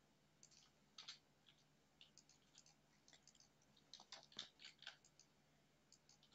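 Faint, irregular clicks of a computer mouse, a dozen or more, clustered most thickly about four to five seconds in, over a faint low steady hum.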